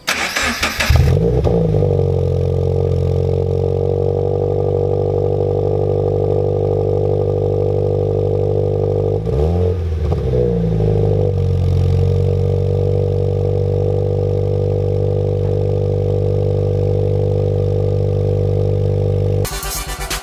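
2014 Subaru BRZ's flat-four engine droning steadily through an MXP Comp RS catback exhaust while driving. About halfway through the pitch dips and rises again, and the sound breaks up choppily near the end.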